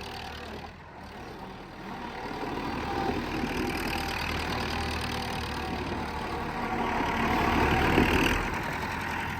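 Massey Ferguson 5900 tractor engine running steadily, growing gradually louder through most of the stretch and easing off near the end.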